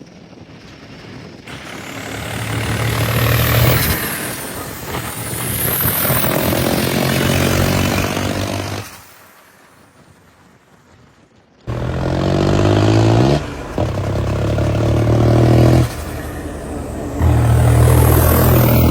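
New Holland 3630 tractor's diesel engine running hard at road speed on a freshly serviced injection pump, coming and going in loud surges. Its sound drops away for a few seconds in the middle, then returns with the engine pitch rising as it picks up speed.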